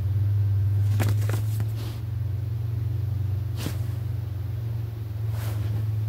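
A steady low hum or rumble, with a few faint light clicks or rustles about one second in, near the middle and near the end.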